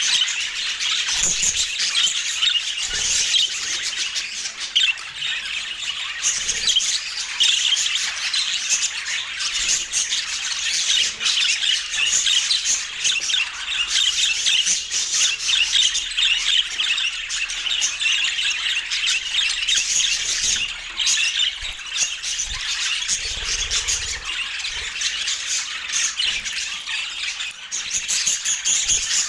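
Budgerigars chattering and squawking, a dense, unbroken stream of high chirps and squawks.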